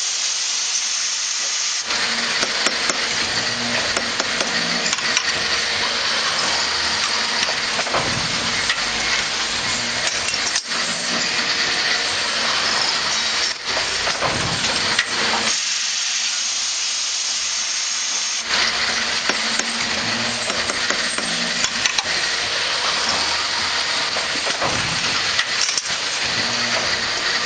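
A four-spindle fixed drill head, driven by a spindle motor, running and drilling 8.2 mm holes in aluminium, with a steady hissing machine noise. A deeper rumble comes in about two seconds in, drops out for a few seconds around the middle, and then returns.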